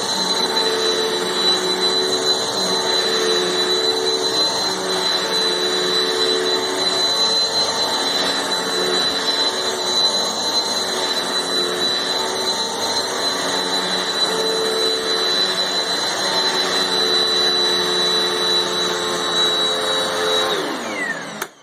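Eureka PowerSpeed bagless upright vacuum cleaner running loud, with a high-pitched whistle held steadily over its motor noise. Near the end it is switched off and the whistle and motor fall in pitch as it spins down.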